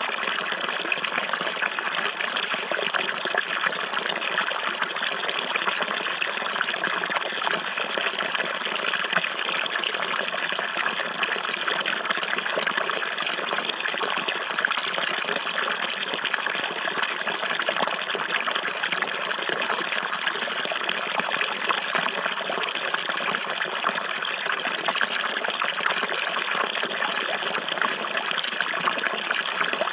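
Running water, a steady trickling flow like a stream, even and unbroken throughout.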